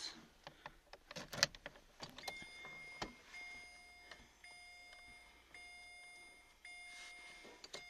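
Faint key and ignition clicks and rattles inside a Chevrolet car, then the car's electronic warning chime sounding repeatedly: about five steady beeps, each almost a second long, with short gaps between them.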